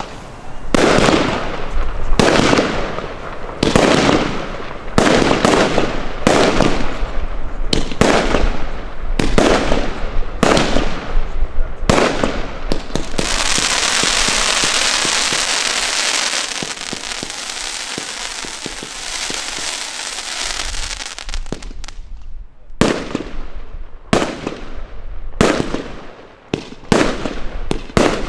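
Klasek C50MO firework cake firing shot after shot, about one bang a second, each with a trailing hiss. About 13 s in, the bangs give way to a dense crackling hiss lasting around eight seconds, then single shots resume, more spaced out.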